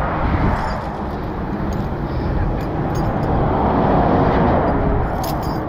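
Steady motorway traffic noise, swelling as a lorry passes close by about four seconds in.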